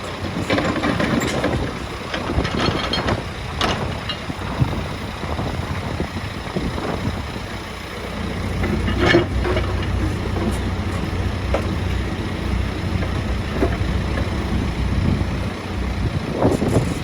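Case 851EX backhoe loader's diesel engine running steadily, with a few short knocks over it.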